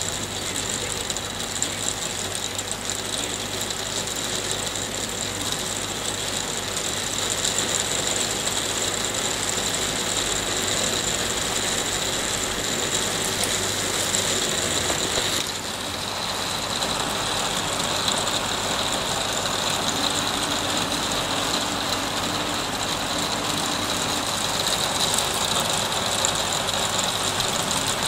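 Hail shower: a dense, steady clatter of many small hailstones striking hard surfaces, with a brief dip in the noise about halfway through.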